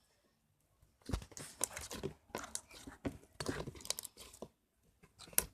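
Sticky crackling and squelching of slime being squeezed and stretched by hand while borax is worked in, in a run of bursts starting about a second in, with a sharp click near the end.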